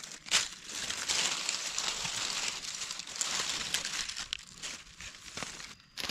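Dry fallen leaves crackling and rustling under gloved hands as mushrooms are dug and cut out of the leaf litter, with one sharp crackle about a third of a second in.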